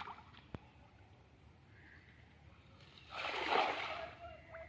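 A splash in shallow water about three seconds in, lasting about a second, after a single sharp click near the start.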